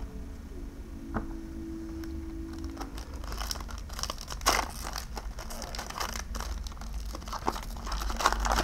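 Crinkling and tearing of a foil Pokémon booster-pack wrapper being opened by hand. It begins about three seconds in as dense, irregular rustling and crackling.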